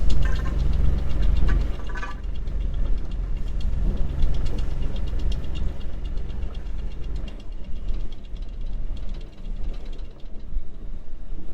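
Electric anchor windlass hauling in anchor chain, with rapid clicking of the links over a steady low motor or engine hum. The hum drops away about seven seconds in.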